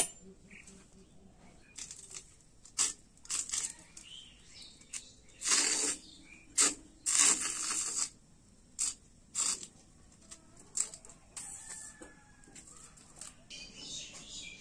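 Intermittent scraping and rasping as batter is spread thin in a metal kadai to make dapra. It comes in short strokes of a fraction of a second, with a few longer ones near the middle.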